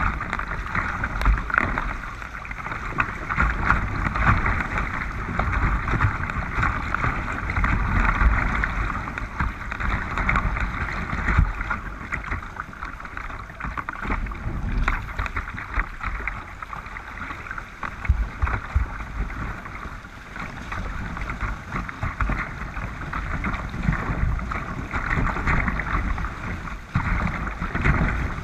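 River water rushing through shallow rapids and splashing against a kayak's bow, a steady surging hiss, with wind rumbling on the microphone.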